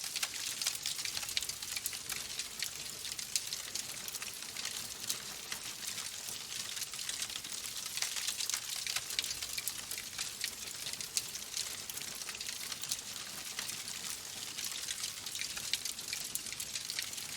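Wood fire in a fireplace crackling steadily: burning logs giving a soft hiss with many small, irregular pops and snaps.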